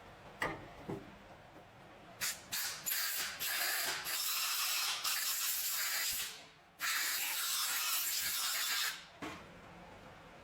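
Two light knocks, then a pressurised spray hissing: a few quick short spurts followed by two long sprays of a few seconds each, with a brief pause between them.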